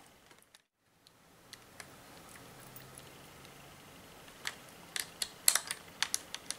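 Small sharp clicks and taps of a hex key and hard plastic parts as a tiny screw is driven into a plastic bracket on a pair of FPV goggles. The clicks are sparse at first and come in a quick cluster over the last two seconds.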